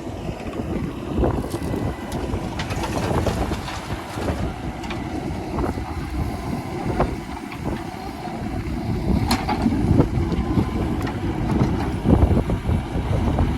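Diesel engine of heavy loading machinery running steadily, with wind buffeting the microphone; a single sharp click about nine seconds in.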